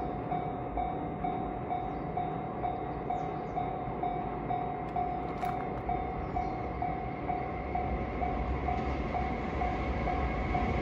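A level-crossing warning bell ringing in a steady rhythm, a little over two dings a second, over the low rumble of an approaching freight train hauled by a JR Freight EF510 electric locomotive. The rumble grows louder near the end as the train draws closer.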